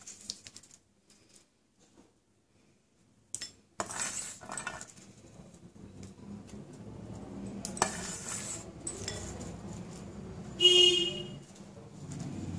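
Fried peanuts being scattered by hand over cooked spinach in a ceramic bowl: scattered light clicks and short rattles after a near-silent start, then a steel bowl clinking with a short ring near the end, the loudest sound.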